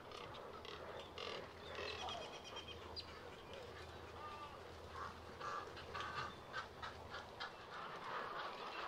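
Many birds of a nesting heron, egret and spoonbill rookery calling at once: short overlapping calls with rattling, chattering notes.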